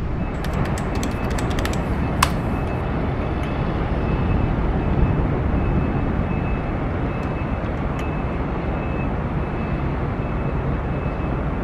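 Steady low rumbling outdoor noise, with a scatter of sharp clicks in the first few seconds, the loudest one a little over two seconds in.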